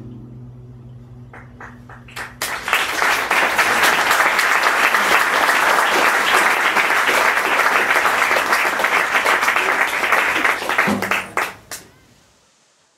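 The last chord of a nylon-string classical guitar rings out and fades. An audience then applauds, starting with a few scattered claps about two seconds in, rising to steady full clapping, and dying away near the end.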